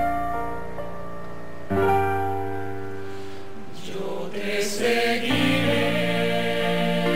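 Slow gospel-style ballad: sustained grand piano chords, changing about two seconds in, then a male voice with a choir comes in singing about five seconds in.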